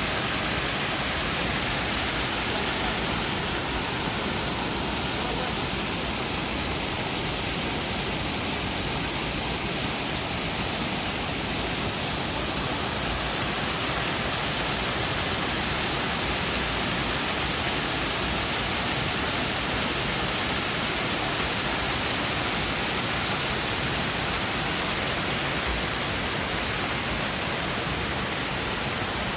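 MacKenzie Falls' water pouring down in a steady, even rush that does not change.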